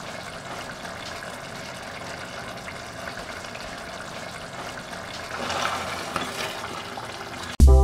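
Thick mutton trotter gravy simmering in a pot, a steady bubbling hiss with faint pops; a spatula stirs through it about two-thirds of the way in, a little louder. Music starts suddenly just before the end.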